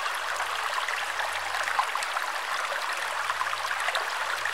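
Shallow, muddy stream running over stones and tree roots: a steady rush of water with small splashes.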